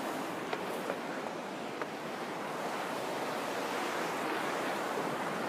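Steady rush of a fast whitewater river over rocks, with a few faint clicks in the first two seconds.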